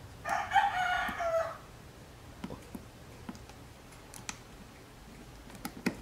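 A rooster crowing once in the background, about a second long, its pitch dropping at the end. A few faint short clicks follow later on.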